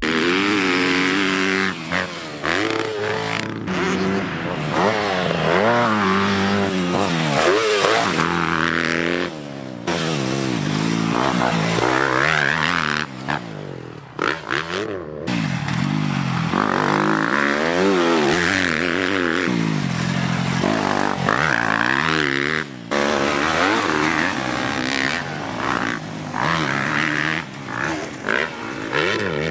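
Motocross dirt bike engine revving hard as it is ridden round a track, its pitch climbing and dropping again and again with throttle and gear changes. The sound breaks off abruptly a few times.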